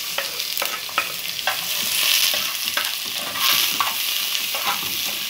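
Chopped onion and garlic sizzling in hot oil in a metal pan, the onion just added and starting to soften. It is stirred, with short scrapes and clicks of the utensil against the pan now and then.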